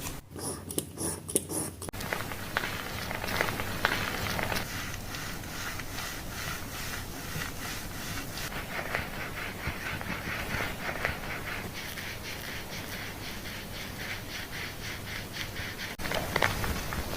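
Fingers scratching and rubbing through hair and scalp during a scalp-care wash, a quick run of rhythmic scratchy rustling strokes.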